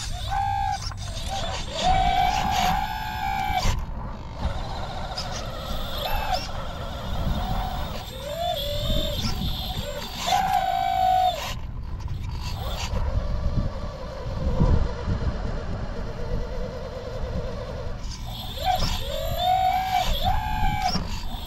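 Electric motors of 1/20-scale RC construction models, an excavator and a mining truck, whining in short bursts that start, stop and bend in pitch as the machines are worked, over a low steady rumble.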